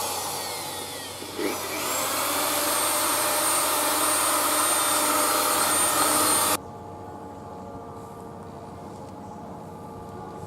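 A high-speed power tool running steadily with a whine, its pitch sagging briefly about a second and a half in as if pressed under load, then recovering; it cuts off suddenly about six and a half seconds in, leaving a quiet steady hum.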